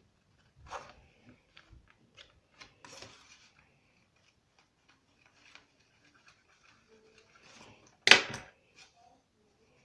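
Paper being handled, with scattered light rustles and clicks and one loud crinkle about 8 seconds in.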